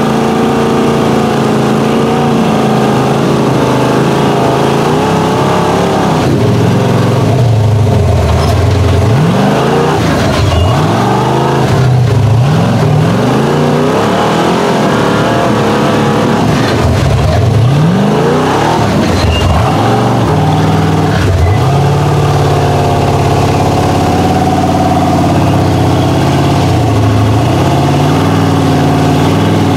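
Big-block V8 engine of a rock-crawling truck running under load, revved up and down repeatedly from about seven to twenty seconds in, then holding a steadier note near the end.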